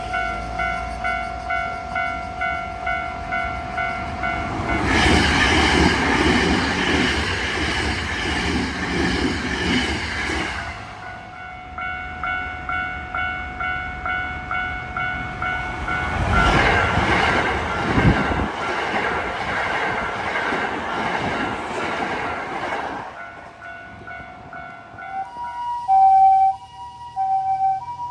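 Japanese level-crossing warning bell ringing in a quick, steady 'kan-kan' of about two and a half dings a second, while two Hankyu electric trains pass over the crossing one after the other. The bell stops after the second train has gone, and near the end a different two-tone alternating signal sounds.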